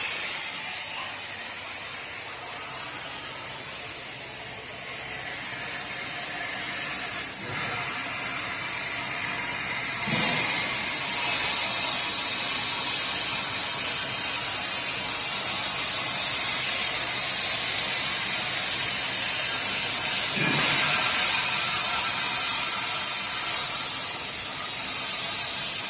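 Plasma cutting torch of a CNC gantry cutting machine hissing steadily as it cuts, growing louder about ten seconds in.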